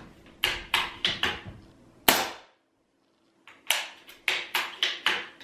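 Benjamin Armada .25 PCP air rifle with a carbon-fibre suppressor and a newly installed de-pinger: quick metallic clicks of the bolt action being worked, one sharp shot about two seconds in with a short ringing tail, then another run of about seven quick clicks as the action is cycled again.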